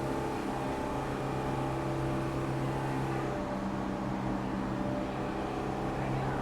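Steady machine hum: an engine or motor running at constant speed, with several steady tones that hold unchanged throughout.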